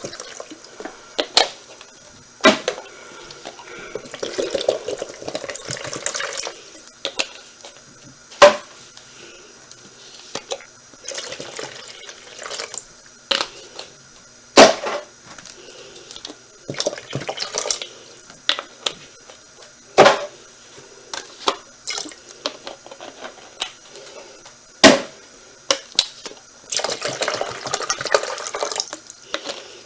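Water being poured into a pet drinking fountain's bowl in several short spells. Sharp knocks and clatters of the fountain's parts and containers being handled fall between the pours.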